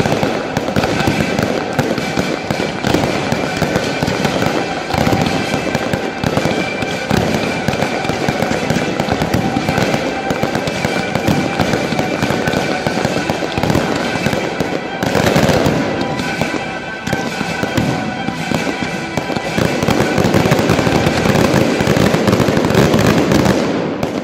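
Fireworks finale barrage: shells, mines and comets firing and bursting in rapid, continuous succession, with dense crackling. It is loudest in the last few seconds, then drops off sharply at the very end.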